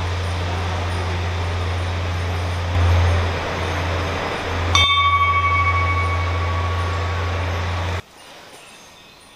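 A motor vehicle engine runs steadily with a low hum. About five seconds in, a sharp click sets off a single bell-like ringing tone that slowly fades. Both cut off abruptly near the end.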